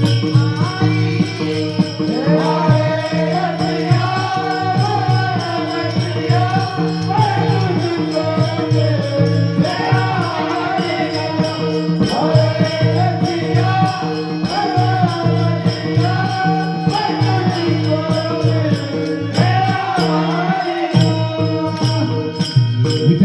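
Devotional bhajan music: a wavering melody over a steady drone, with a regular jingling percussion beat.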